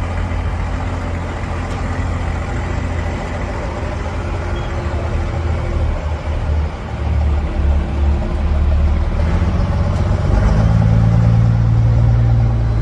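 Off-road 4x4's engine running steadily, growing louder near the end as it is revved.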